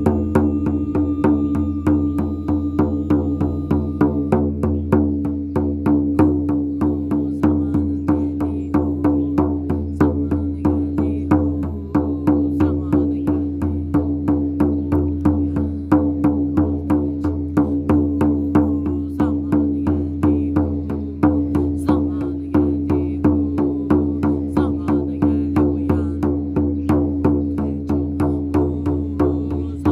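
Meditative music: a shaman drum beaten in a steady, even rhythm over a sustained low drone.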